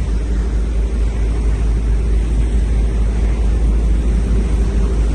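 Tour boat underway: a steady, loud low rumble of its engine, with a faint steady hum above it.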